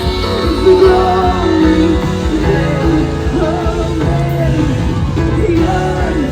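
Rock-style worship song with a sung melody over a steady beat, guitar and bass.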